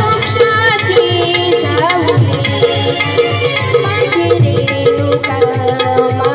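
Live Marathi devotional song: a woman singing through a microphone and PA, with a dholak beating a steady rhythm and electronic keyboard accompaniment.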